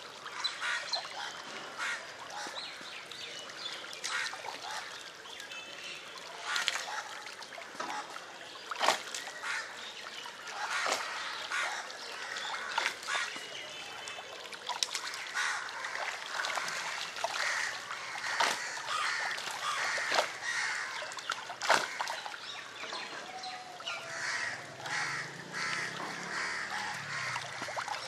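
A crowd of tilapia splashing and slurping at the water surface as they feed on floating pellets, a continuous wet churning broken by irregular sharp splashes.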